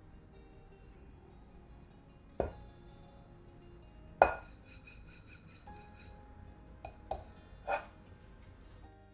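A frying pan knocking and clunking against a tabletop as it is handled and set down, about five knocks with the loudest about four seconds in, over soft background music.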